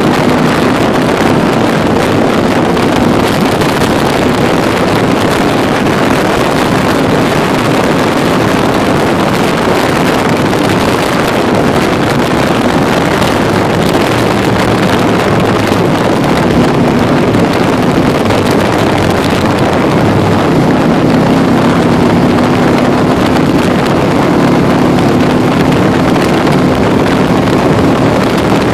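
Can-Am Spyder three-wheeled motorcycle riding along at road speed: steady engine running under heavy wind rush on the microphone, with the engine note climbing gently over the last several seconds.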